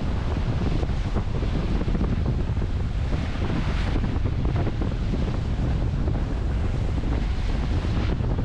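Heavy wind buffeting the microphone over the rush of sea water past a racing sailboat under way at speed, with brief swells of hissing spray about four seconds in and again near the end.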